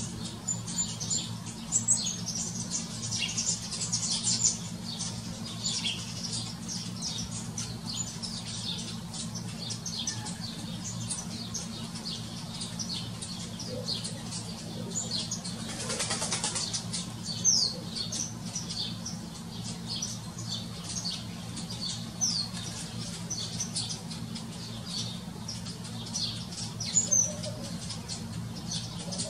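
House sparrows chirping, many short quick calls one after another, over a steady low hum, with a brief rushing sound about halfway through.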